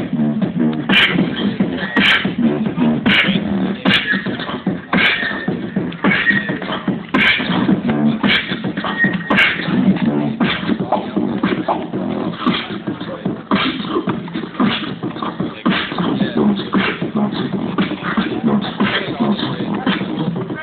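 Live beatboxing played through a small speaker: a steady hip-hop beat with a sharp snare-like hit about once a second over low bass sounds.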